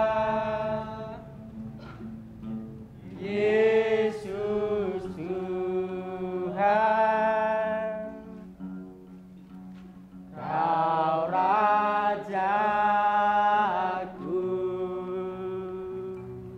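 A woman singing a slow song solo, holding long notes that bend and glide in pitch, in phrases separated by short pauses.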